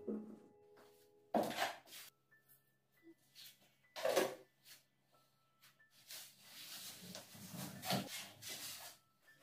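A drywall knife scraping joint compound out of a bucket, then spreading it over gypsum board in a longer stretch of rasping strokes in the second half.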